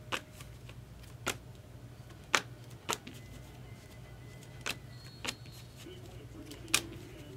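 Topps Chrome trading cards being handled and flipped one at a time during a pack break, giving about seven sharp, irregularly spaced clicks over a low steady hum.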